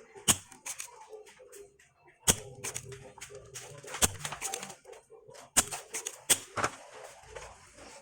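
Irregular sharp clicks and knocks of tools and parts being handled: about six loud ones among many smaller taps.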